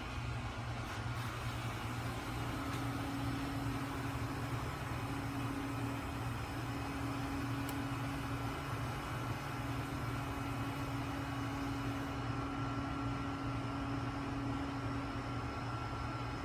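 Steady low machine hum with a constant hiss, a faint pitched whine joining it about two and a half seconds in.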